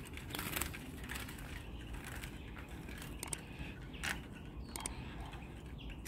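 Faint rustling with scattered small clicks and knocks: hands working a wooden, wire-topped bird trap cage and taking a caught goldfinch out of it.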